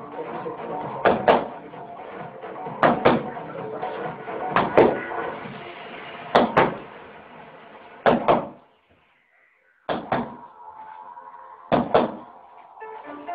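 A child's boxing gloves thumping in quick one-two pairs against a man's hands, a pair about every two seconds, over background music. All sound cuts out briefly about nine seconds in.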